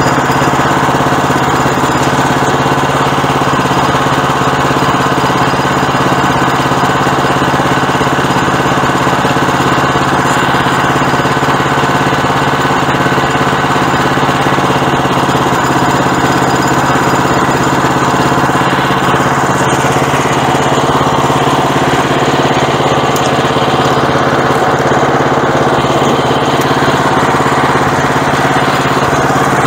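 Small gas engine of a Woodland Mills portable bandsaw sawmill running steadily at a constant speed.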